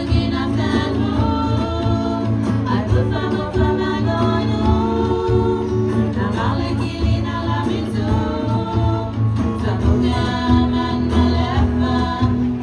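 Background music: a song with voices singing over a steady bass and guitar accompaniment.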